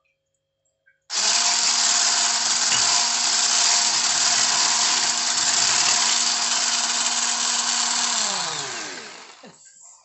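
Handheld electric mixer with wire whisk beaters switched on about a second in, running steadily as it beats a liquid batter. Near the end it is switched off and winds down with a falling whine.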